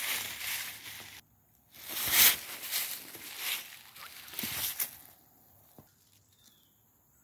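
Footsteps crunching through dry leaves and pine needles, a few irregular steps, then near quiet for the last couple of seconds.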